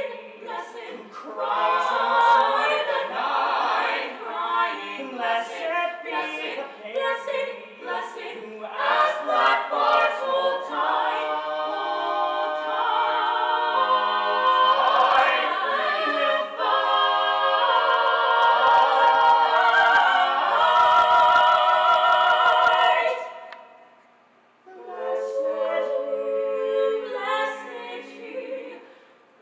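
Small vocal ensemble singing in harmony, building to a long held chord with vibrato that breaks off about 23 seconds in; after a brief pause the voices come back in more softly.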